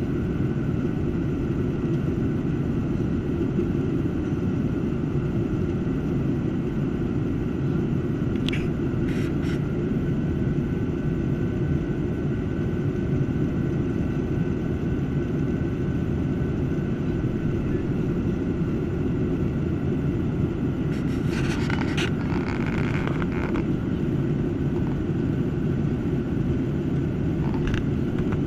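Steady cabin drone of a Boeing 737-800 in flight: its CFM56-7B turbofan engines and the airflow over the fuselage making an even, deep rumble, with a faint steady whine above it. A few brief faint noises from inside the cabin twice along the way.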